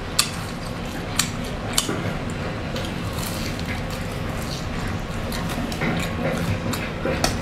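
Close-miked eating: biting and chewing a crusty fried snack on a skewer, with a few sharp crunchy clicks, the clearest in the first two seconds, over a low steady hum.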